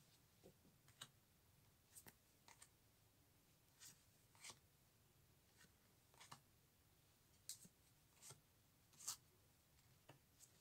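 Yu-Gi-Oh! trading cards sliding against each other as they are flipped through one at a time: faint, short swishes and scrapes, roughly one a second at an uneven pace.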